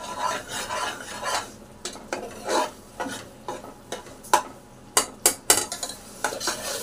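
Metal ladle stirring and scraping thick masala frying on high heat in a pressure cooker pot, the paste starting to catch on the bottom, with a light sizzle. A few sharp metal-on-metal clacks come about four seconds in and again around five seconds in.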